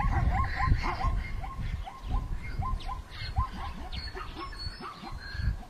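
An animal calling with a quick series of short, rising chirps, about two to three a second, fading toward the end. A low rumble runs underneath.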